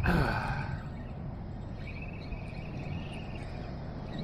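Shimano Sienna 4000 spinning reel buzzing in a steady spell a couple of seconds in, while a hooked fish is on the bent rod, over a continuous low rumble; a brief louder noise with a falling sweep right at the start.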